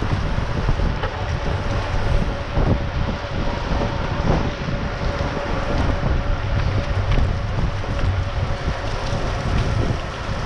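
Wind rushing over the microphone of a camera on a moving mountain bike, a steady low buffeting, with the rolling noise of the bikes on asphalt underneath.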